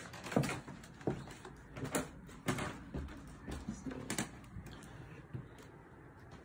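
Built-in closet doors being opened and handled: a series of sharp knocks and rattles, about half a dozen in the first four seconds, dying away after that.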